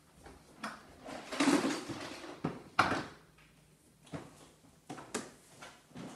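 Footsteps in socks on wooden stairs, irregular soft thuds, with a plastic crate knocking and rattling as it is carried up; the sharpest knock comes about three seconds in.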